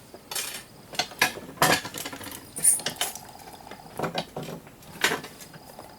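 Irregular clinks and taps of small metal parts and hand tools being handled while a surge protector is taken apart for its brass and copper, about nine sharp knocks spaced unevenly.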